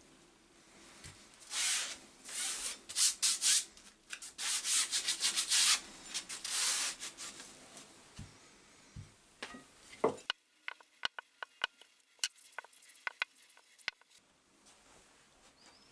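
Metal files handled with a gloved hand on a towel: bursts of rubbing and scraping for several seconds, then a run of sharp light clicks and taps about ten seconds in as the files are set down.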